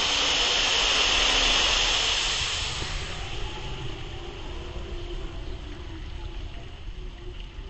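Spray of water from the Krake dive coaster's splashdown hissing down as mist, loud for the first three seconds and then dying away.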